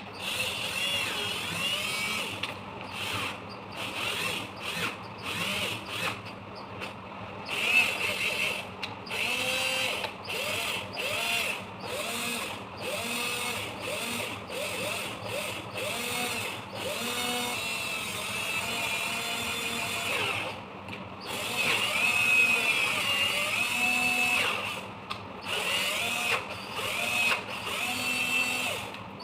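Battery-powered drill's motor started and stopped over and over, its whine rising as it spins up and falling as it slows each time the trigger is pressed and released. The runs are short at first and grow longer and steadier after about twenty seconds.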